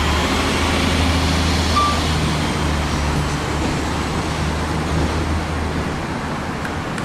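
Steady low rumble and hiss of motor vehicle noise, an engine hum or road traffic, with no break.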